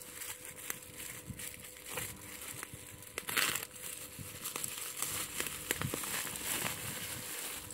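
Packaging crinkling and rustling as a parcel is unwrapped by hand, with scattered crackles and a louder rustle about halfway through.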